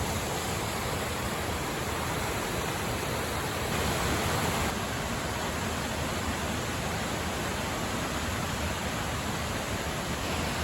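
Waterfall running, a steady, even rush of falling water that swells slightly about four seconds in.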